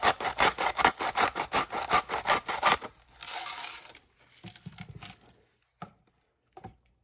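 Salt grinder being twisted over food, a rapid rasping of about six strokes a second that stops about three seconds in, followed by a shorter, softer rasp and a few light taps.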